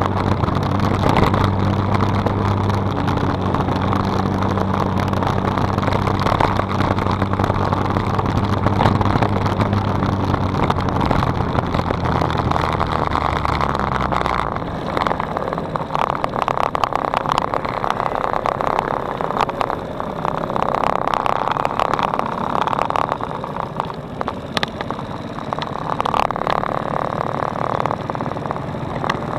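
Small light-gear motorcycle engine running at a steady hum under wind rushing across the microphone while riding; the engine note drops away about halfway through and the wind rush carries on.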